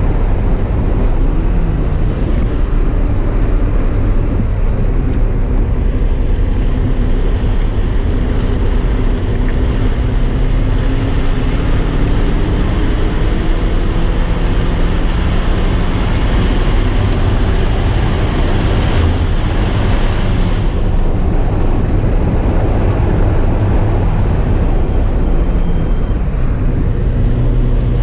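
Porsche 944's inline four-cylinder engine running hard on track, heard from inside the car over wind and road noise, its pitch climbing and falling with the revs.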